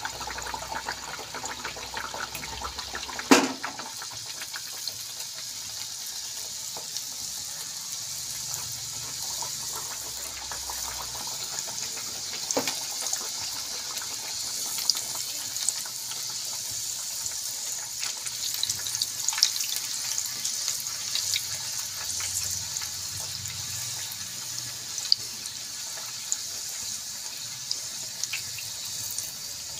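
Puris deep-frying in hot oil: a steady sizzling hiss with scattered crackles and pops. There is one sharp knock about three seconds in.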